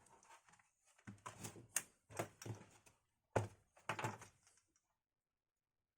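Clicks and knocks of an SSD in its drive caddy being handled and pushed into a laptop's drive bay, with one sharper knock about three and a half seconds in.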